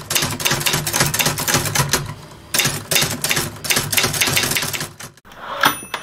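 Typewriter sound effect: rapid, dense clacking of keys in two runs, with a short break about two seconds in, cutting off about five seconds in.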